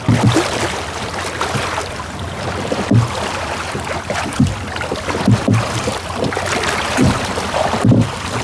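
Water splashing and sloshing around a small rowed boat, with irregular low knocks about every second or so.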